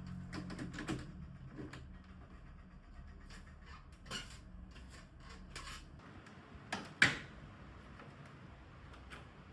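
Light clicks and knocks of hard objects being handled, over a faint low hum that stops about six seconds in. A single sharp click about seven seconds in is the loudest sound.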